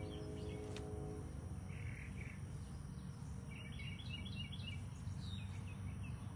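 Outdoor garden ambience: a low steady rumble with a humming tone for about the first second, and a bird chirping a few quick notes around the middle.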